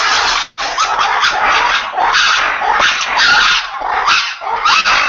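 Red ruffed lemurs giving their pretty loud roar-shriek chorus, a harsh pulsing din of overlapping calls with a brief break about half a second in. It is their territorial and alarm call, set off by an unusual sound or sight.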